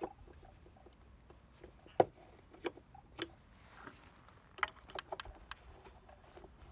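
Scattered light clicks and knocks of a screwdriver blade working at the plastic license plate lamp housing in a car's tailgate, the sharpest knock about two seconds in.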